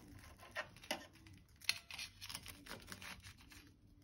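Faint crunching of a knife sawing through a toasted sandwich's crisp bread, heard as a scatter of short crackles.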